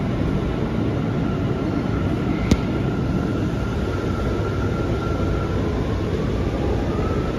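Bombardier R179 subway car running between stations, heard from inside the car: a steady rumble of wheels on rail with a faint steady whine. A single sharp click comes about two and a half seconds in.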